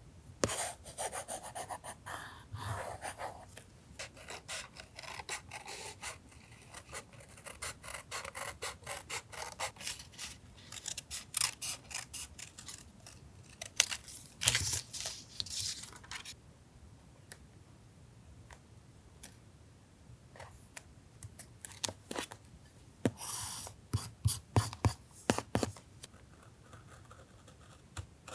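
Paper being handled for a collage journal: rubbing, scraping and rustling of paper mixed with many small sharp taps and clicks, busier at the start and near the end, with a quieter stretch about halfway through.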